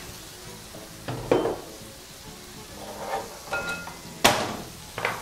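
Marinated zucchini chunks sizzling steadily on a hot griddle pan, with clinks and knocks of utensils and dishes over it; the sharpest clack comes about four seconds in, and one clink rings briefly.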